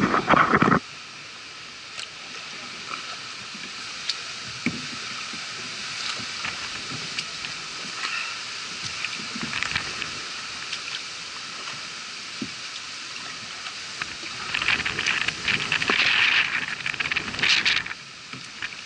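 Kayak paddle strokes in shallow floodwater: the blades dip and splash with water trickling and dripping between strokes, busier and louder for a few seconds near the end. A loud burst of noise cuts off just under a second in.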